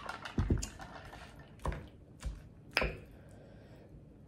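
A drinking tumbler set down on a table with a low thump, followed by a few sharp clicks and taps of a fork digging into salad in a clear food container.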